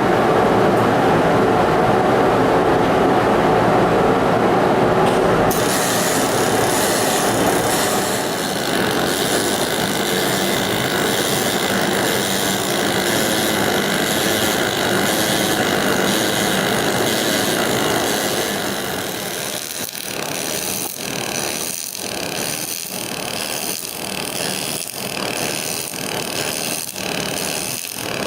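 Aluminium MIG welding arc from a double-pulse MIG welder running continuously, 1.2 mm AlMg wire at 110 A peak and 50 A base. In the last third the sound dips and swells regularly about once a second, in step with the 1 Hz double-pulse setting.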